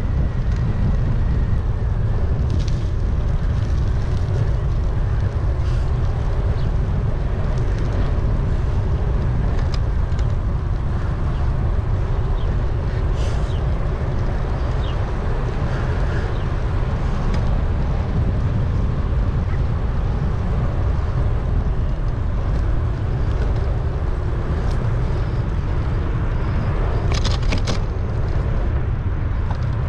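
Steady wind rumble on the microphone of a moving bike-mounted action camera, heaviest in the low end, with a few faint short high chirps or clicks now and then.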